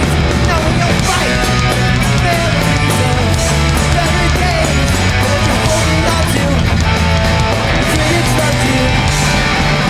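New York hardcore punk band playing live at full volume: fast distorted electric guitars, bass and pounding drums, loud and unbroken.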